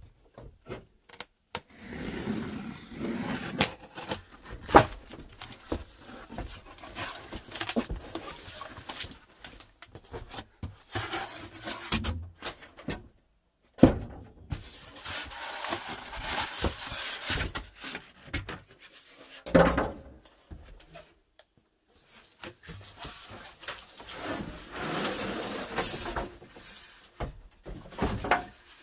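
Cardboard shipping box being cut open and pulled apart by hand: a knife slitting the packing tape, cardboard and styrofoam packing scraping and rustling, with a few sharp knocks.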